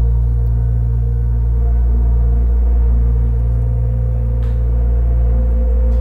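Dark ambient background music: a loud, sustained low drone of steady held tones with no beat.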